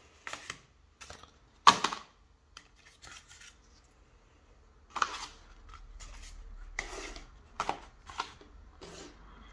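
Plastic SmartTag2 tracker tags and their cardboard packaging tray being handled: irregular clicks and knocks, the sharpest about two seconds in.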